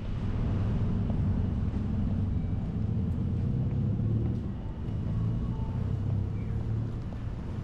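Town street ambience dominated by a steady low vehicle rumble.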